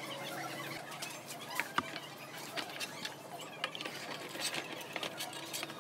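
Soapy water crackling and lightly splashing as a rusty steel rake head is moved through the suds, with scattered small clicks.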